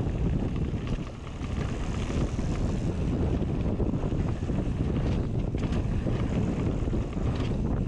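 Wind buffeting the camera microphone and mountain bike tyres rolling over a dirt trail on a descent: a steady low rumble with a few light rattles from bumps.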